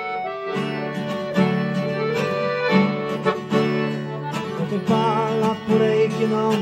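Acoustic guitar strumming under a piano accordion playing the melody: the instrumental introduction of a sertanejo song, sustained reed chords over a steady beat.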